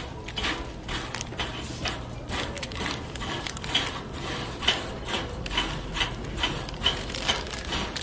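Wire shopping cart rolling across a hard tiled floor, rattling all over with an irregular run of clicks and clatters, a few a second. The rattle comes from its wheels, which the pusher says are the same old kind as on the older carts.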